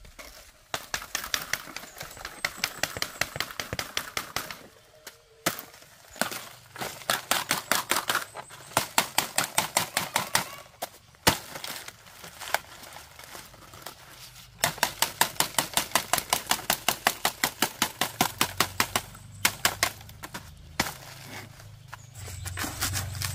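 Rapid runs of sharp chopping strikes on wood, about four or five a second, in bursts of several seconds with short pauses between.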